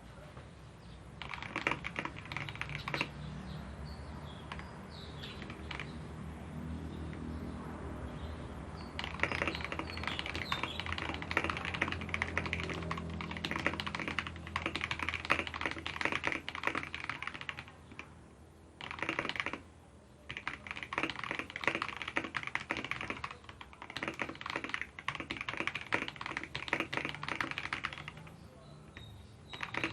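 Typing on a Key Pole K84 mechanical keyboard with lubed Akko CS Matcha Green switches, lubed stabilisers and foam inside: a stream of key clacks, a few at a time at first, then fast continuous typing with a few short pauses.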